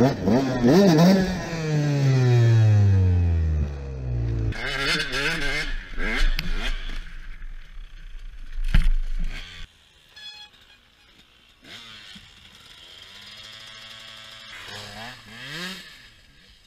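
KTM 125 SX single-cylinder two-stroke dirt bike engine revving, then falling in pitch as the revs drop over a few seconds. Scraping and clattering follow as the bike goes down, with a sharp knock about nine seconds in. After that the engine revs more faintly, rising again near the end.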